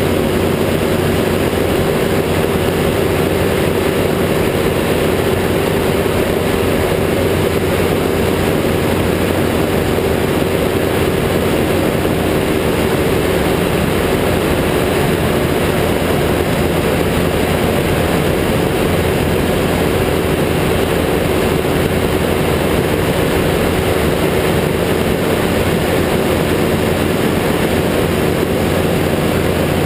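Ultralight trike's engine and pusher propeller running at a steady cruise in flight, a constant drone with wind rushing over the open cockpit.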